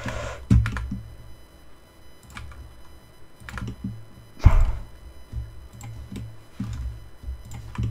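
Computer keyboard keys and mouse clicks tapping irregularly while working in 3D modelling software, with one louder thump about four and a half seconds in.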